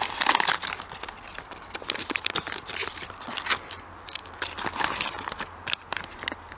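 Plastic and foil ration-pack packaging rustling and crinkling as the items are handled, with irregular sharp crackles.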